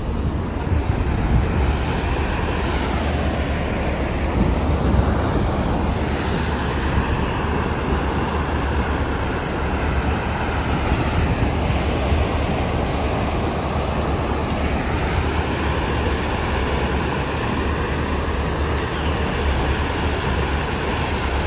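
Passenger boat's engine running with a steady low drone under the rushing of its churning wake, with wind on the microphone.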